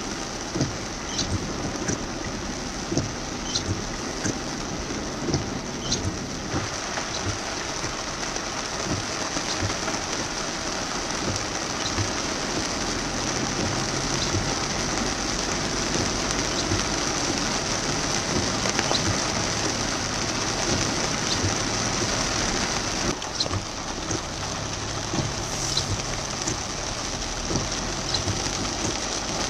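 Heavy rain pelting a car's roof and windshield, heard from inside the car: a steady hiss with many separate drops tapping.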